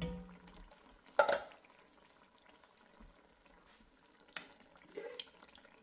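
Utensil stirring and scraping in a pot of thick canned soup, knocking against metal: a dull thud at the start, a sharp clatter about a second in, and a couple of lighter knocks near the end.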